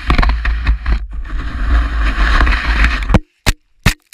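Wind rumbling on an action camera's microphone, mixed with the hiss of skis scraping over snow. It cuts off suddenly about three seconds in, leaving a few short sharp clicks.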